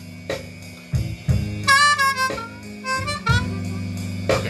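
Diatonic blues harmonica playing over a slow blues backing track, with several notes bent down in pitch about two seconds in, above the track's sustained low chords.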